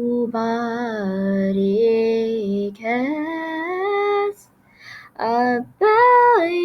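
A female voice singing unaccompanied: long held notes that step up and down in pitch, sung in a few phrases with short breaks between them.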